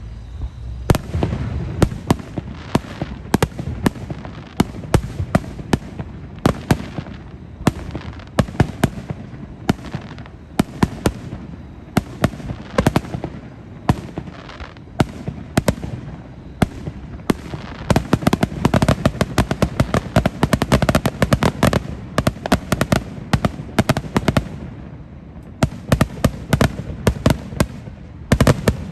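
Fireworks display: a rapid, unbroken run of bangs and crackles, densest in the second half, with a short lull a few seconds before the end.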